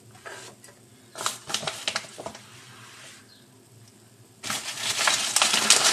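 Handling noise on a kitchen counter: a few light knocks, then, about four and a half seconds in, a loud crinkling rustle full of small clicks.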